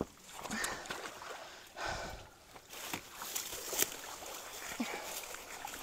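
Water sloshing and splashing around people wading in a creek and dragging branches out of a log jam, with scattered cracks and knocks of wood, the sharpest nearly four seconds in.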